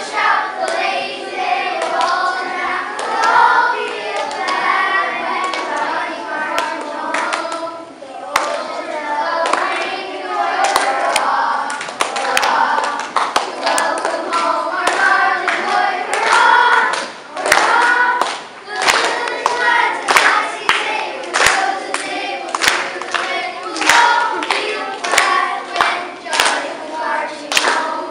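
A group of voices singing together, with hand claps coming in that grow thicker through the second half, where the claps become the most prominent sound over the fading singing.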